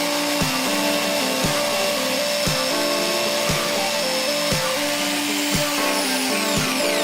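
Background music with a steady beat of about one stroke a second, over an electric power tool running steadily.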